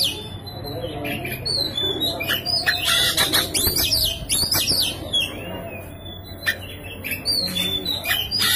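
Oriental magpie-robin (kacer) singing insistently, in bursts of quick sweeping whistled notes with short pauses between them. The song is thinner around the middle and dense again near the end.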